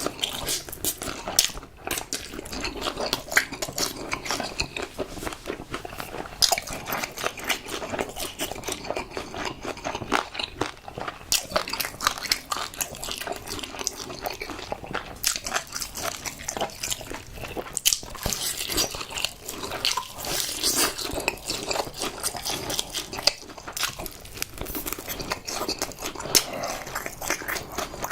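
Close-miked eating: crunchy biting and chewing of crispy fried chicken, with many sharp, irregular crackles.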